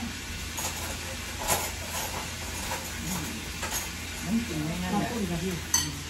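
Spoons and cutlery clinking against plates and bowls as people eat, in scattered light taps with a sharper clink near the end.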